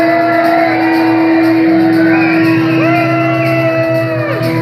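Rock band playing live in an instrumental passage: an electric guitar lead line with gliding, bent notes over a steady held low note, with bass and drums underneath.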